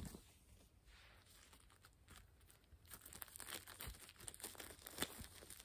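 Faint crinkling and rustling of a sanitary pad's plant-based plastic wrapper being unfolded and handled: almost nothing at first, then busier, irregular crackling from about halfway through, with one sharper crinkle near the end.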